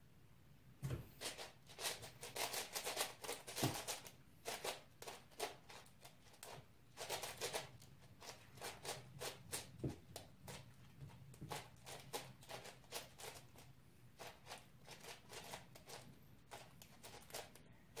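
Rubik's-type speedcube being turned very fast: dense runs of light plastic clicking and clacking with short pauses between runs, starting about a second in.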